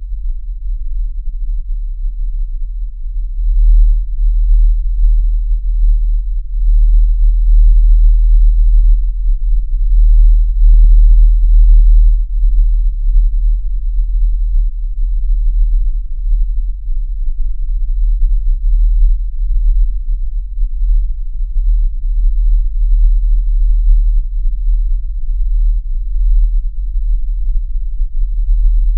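Loud, deep sub-bass drone of a horror sound-effect soundscape, swelling over the first few seconds and then wavering in level. A few faint short low knocks come through about eight and eleven seconds in.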